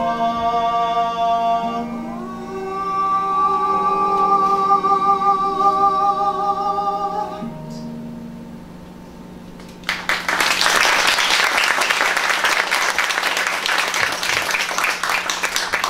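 A voice holds a final sung note with vibrato over instrumental accompaniment, which then fades away. About ten seconds in, a live audience breaks into applause.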